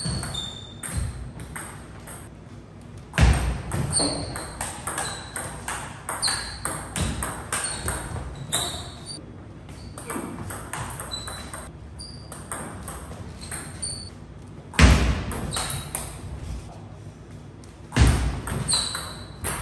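Table tennis rallies: the ball clicking off the paddles and pinging on the table in quick exchanges of sharp ticks, broken by three loud thumps, about three seconds in, near the middle of the second half, and shortly before the end.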